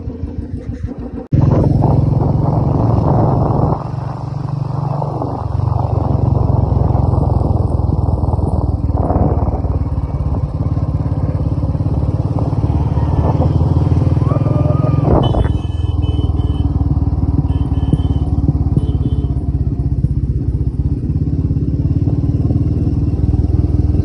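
Motorcycle riding off, engine running with a heavy low rumble that starts abruptly a little over a second in; the engine's pitch rises and falls a few times as the bike changes speed.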